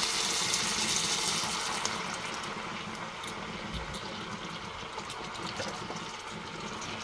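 Liquid poured into a hot electric skillet of browned chicken pieces: a loud hiss and sizzle for about the first two seconds, easing into a steady, quieter simmer as the sauce settles in the pan.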